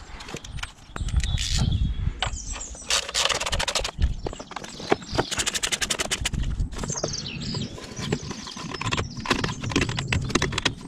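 Thermostat housing and coolant pipes being worked back into place on a Jaguar 2.7 litre diesel V6: irregular knocks and scrapes of plastic and metal parts, with two quick runs of clicks, the second lasting about a second and a half.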